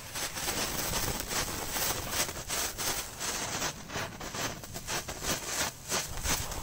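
Small ground firework burning on the ice, a steady spark-spraying hiss broken by many quick, irregular crackles.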